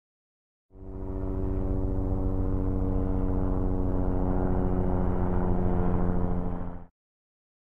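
Bell 206 helicopter in flight: the fast, steady beat of its two-blade main rotor under a steady droning tone. It starts about a second in and cuts off abruptly shortly before the end.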